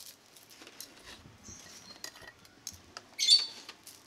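Metal scissors snipping fried fritters into pieces on brown paper wrapping: scattered light snips and paper rustles, with one louder, sharper metallic snip about three seconds in.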